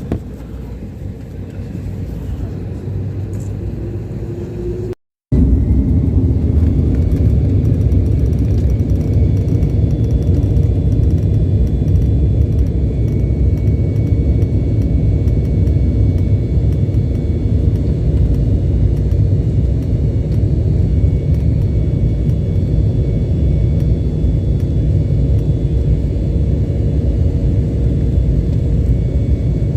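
Airliner cabin noise: a steady low engine rumble with faint steady high whines. A quieter rumble runs for about the first five seconds, then the sound cuts out for a moment and comes back louder.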